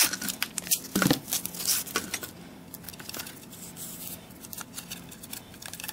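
Blue painter's tape being pulled off the roll and smoothed onto a plastic pipe: short crackling tears and crinkles in irregular bursts, loudest near the start and again about a second in.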